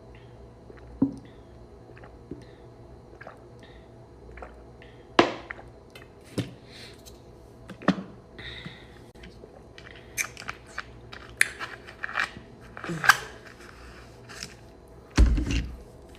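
Close-up chewing and mouth sounds of a person eating, broken by irregular sharp clicks and taps, with a heavier thump near the end.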